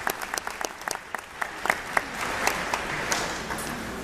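Audience clapping, the applause thinning out and dying away about three seconds in.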